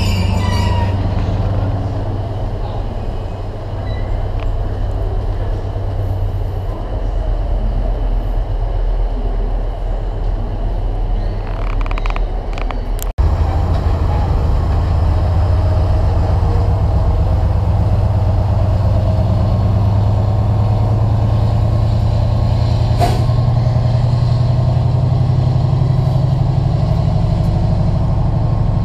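Diesel engine of a Colas Rail Class 70 freight locomotive (GE PowerHaul V16) running with a steady low drone as its train of hopper wagons passes. After an instant's dropout about halfway, the engine is louder, and its drone builds a little as it works hard, giving off dark exhaust smoke.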